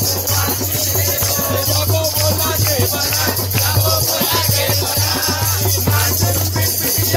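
Loud devotional music: a sung melody over steady rhythmic percussion with a shaker-like rattle.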